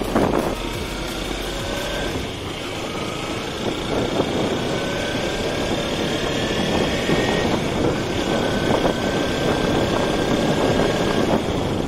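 Motorcycle engine running while the bike is ridden along a road, its note creeping slowly up and dropping back a couple of times, under a steady rush of wind and road noise.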